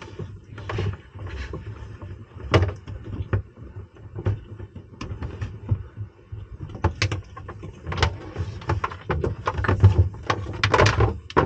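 Battery cables being pulled and fed along a channel under a boat's deck: irregular scraping, rustling and knocks of the cable and hands against the hull, over a low hum.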